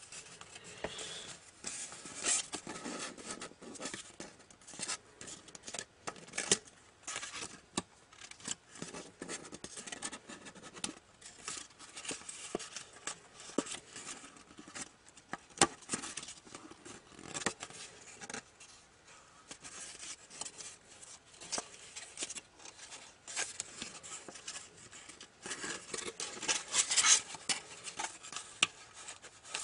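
A sheet of origami paper rustling and crinkling in the hands as it is folded and creased, many small sharp crackles in an uneven run, busiest about two seconds in and again near the end.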